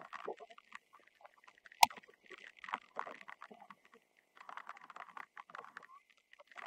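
A single sharp crack of a field hockey stick striking the ball about two seconds in, over faint irregular tapping and patter.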